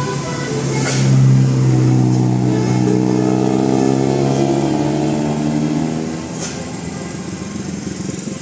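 A bus going by with a loud chord of steady tones, some of them gliding, typical of a multi-tone telolet horn. It builds about a second in, holds for around five seconds and falls away about six seconds in.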